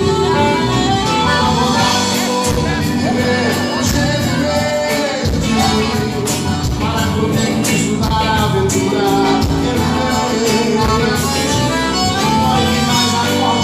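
Live forró band playing: accordion with electric and acoustic guitars over a steady drum beat, with a man singing in parts.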